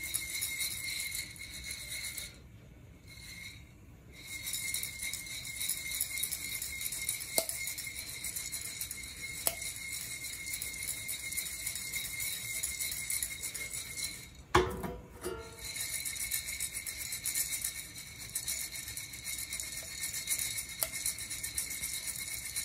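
Coffee beans rattling inside a ceramic Nuvo handheld roaster as it is shaken back and forth over a gas flame during roasting. The rattle eases off briefly about two seconds in and again partway through, where a single sharp clack is the loudest sound.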